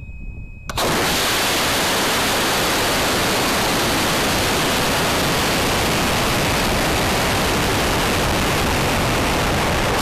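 A model rocket launch heard from onboard: the CTI H410 VMax motor lights under a second in with a sudden rush of noise. The noise holds steady and loud as air rushes past the rocket on its climb to apogee.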